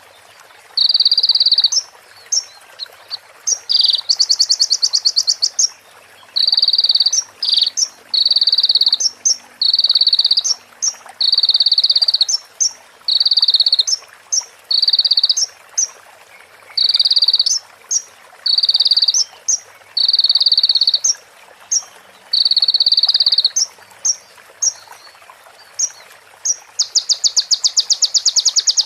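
Konin (sunbird) singing a long series of short, buzzy, high trills about a second long each, with a faster rattling trill about four seconds in and a longer one near the end. The song is filled with imitations of female bar-winged prinia (prenjak) and ciblek calls.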